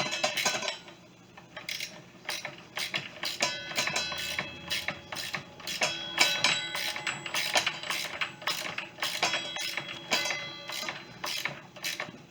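Metal wrench clicking and clinking against the blade bolt of a Ryobi 10-inch miter saw as the bolt is tightened, many irregular knocks with short metallic ringing.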